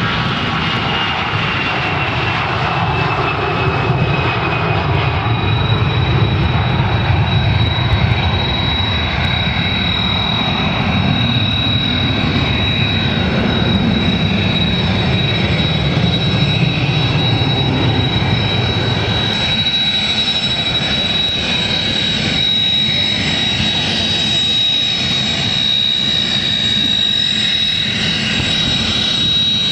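Jet airliner's engines at takeoff thrust: a deep rumble that fades after about twenty seconds as the aircraft climbs away. A steady high-pitched jet whine runs over it and grows stronger, and near the end a Kawasaki T-4 jet trainer is taxiing.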